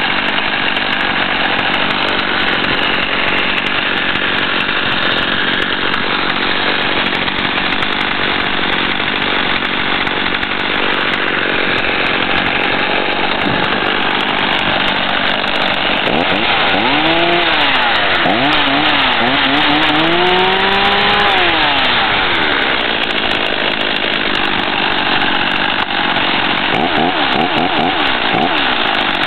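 Husqvarna 50 two-stroke chainsaw engine running steadily. About halfway through, it is revved up and down several times.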